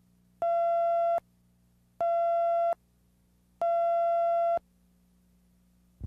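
Three electronic beeps of one steady mid-pitched tone, each under a second long and about a second and a half apart, the third a little longer: countdown tones over a TV spot's slate card, above a faint steady hum. A short click near the end.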